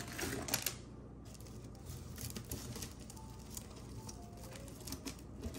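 Faint handling sounds: hands moving over a cloth and picking up costume jewelry, with scattered light clicks and rustles.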